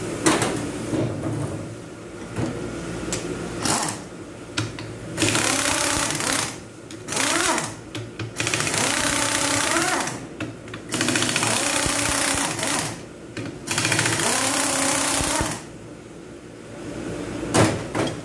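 Pneumatic impact wrench run in repeated bursts of one to two seconds, each spinning up in pitch, as it undoes bolts on an automatic transmission's aluminium case. A sharp metallic clank comes near the end.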